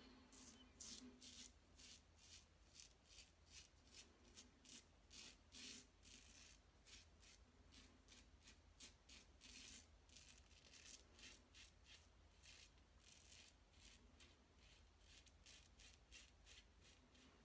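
Short, faint scrapes of a safety razor, a Parker 69CR with its closed comb plate and a Voskhod blade, cutting stubble through shaving lather, about two or three strokes a second. The strokes run smoothly, with no hang-ups.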